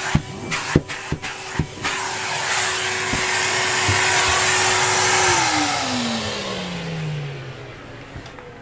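Numatic Henry HVR200A2 580-watt vacuum cleaner running, with sharp clicks of debris rattling through the hose during the first couple of seconds and the suction rush swelling. About five seconds in it is switched off, and the motor's whine falls steadily in pitch as it winds down.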